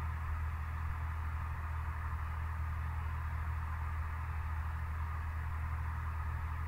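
Steady low hum with a hiss above it, both cutting off suddenly.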